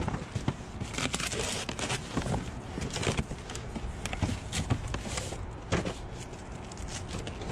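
Junk being handled and shifted inside a dumpster: scattered knocks and clatters of plastic and metal parts over constant rustling.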